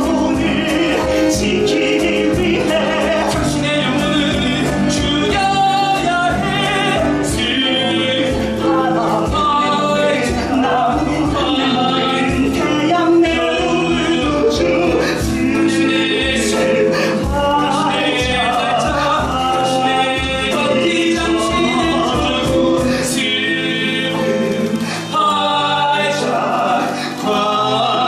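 Male voices singing a musical-theatre song over instrumental accompaniment, with long wavering held notes.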